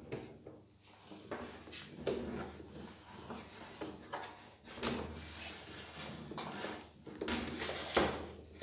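Power cable being wound onto the cable holder on the plastic body of a Kärcher HD 5/15 C+ pressure washer: a series of irregular knocks and scrapes of the cable against the housing.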